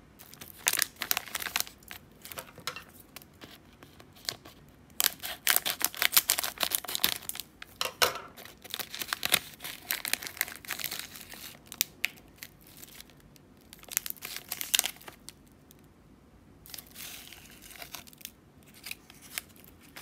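Plastic snack wrapper crinkling and tearing as a chocolate wafer bar is unwrapped by hand, in several bursts of crackly rustling with short pauses between.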